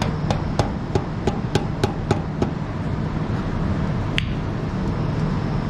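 Hammer tapping a screwdriver wedged into the seam of a garden tractor's stuck rear-end cover, driving it in to break the cover loose: a quick run of sharp metal knocks, about three or four a second, then a pause and one sharper ringing strike about four seconds in.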